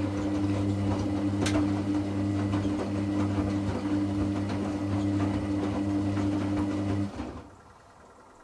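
Hoover Classica 1100 AC164 washing machine's drain pump running with a steady mains hum and water noise, cutting off abruptly about seven seconds in.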